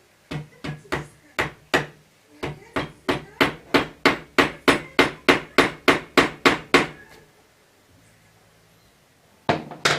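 A hammer striking wood repeatedly, about three blows a second for some seven seconds with a short break early on, then two more blows near the end, as something is driven into a damaged screw hole.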